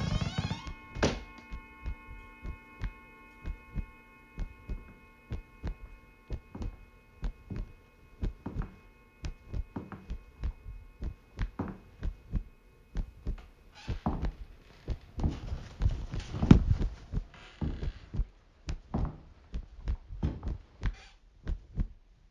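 Homemade foley: a long run of dull thumps at about two a second, made with household items. A steady chord of held tones sounds under them at first and fades out about two-thirds of the way in. A rustling hiss then rises under the thumps and fades away again.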